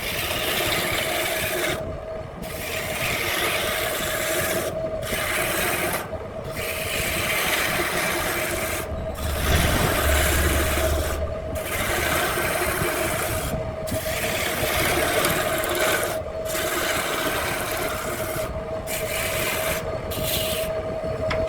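Handmade wood lathe running with a steady hum while a turning tool scrapes against the spinning wood. The scraping breaks off briefly about every two seconds as the tool lifts from the wood, and the hum carries on through the gaps.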